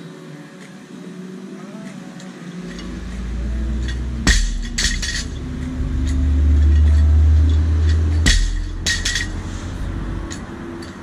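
Deep engine rumble of a large truck that swells and then fades, with two clusters of sharp metallic clanks, about four seconds in and again about eight seconds in.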